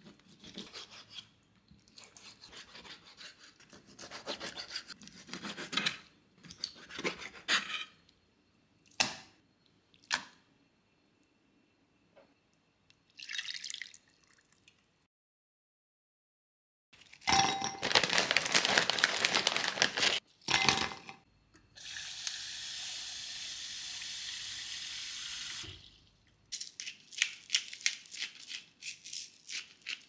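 A run of small food-preparation handling sounds: clicks, rattles and rustles, then after a brief silence louder clattering and about four seconds of steady hiss, ending in a quick series of light taps.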